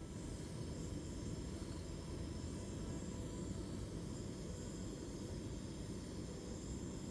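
Backpacking gas canister stove burning steadily under a pot, a constant rushing hiss.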